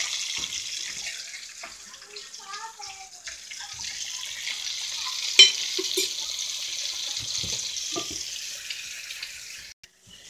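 Flour-coated chicken thighs frying in a pot of hot oil, a steady sizzle that eases off a little as it goes. About halfway through comes one sharp knock, with a lighter one just after.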